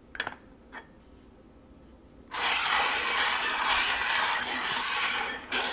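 Two light taps, then small round metal tins sliding and scraping across a tabletop as they are shuffled: a steady scraping noise lasting about three seconds.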